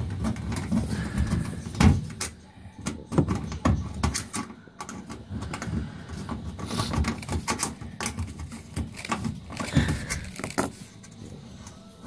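Irregular small metal clicks, knocks and rubbing as screws are taken out of the lower front panel of a front-loading washing machine.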